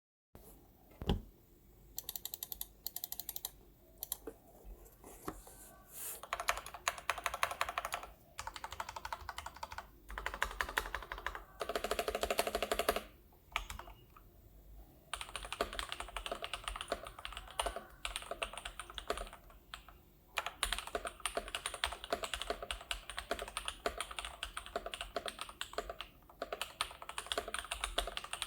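Typing on a Tester68 mechanical keyboard with lubed and filmed Gateron Pure Berry switches, a foam-filled case, a silicone plate and PBT keycaps. Fast runs of keystrokes come in bursts of a second or few, broken by short pauses, with a dense, rapid run of keystrokes a little before halfway.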